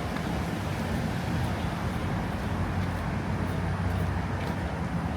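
Road traffic on a city street: a steady low rumble of passing cars' engines and tyres.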